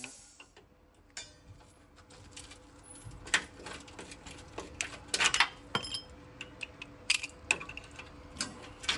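Hand tools clicking, tapping and scraping on the steel of a Jeep frame rail as a freshly plasma-cut section is worked loose. It is an irregular string of sharp metallic clicks and clinks, busiest and loudest around three to six seconds in.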